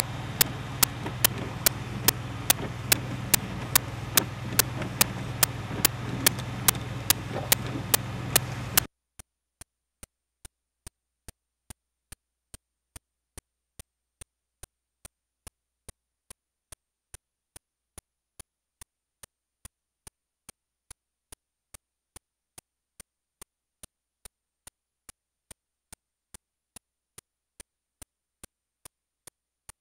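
Sharp, evenly spaced clicks, about two a second, over a steady hiss and low hum. About nine seconds in the hiss and hum cut off suddenly, and the clicks go on much fainter.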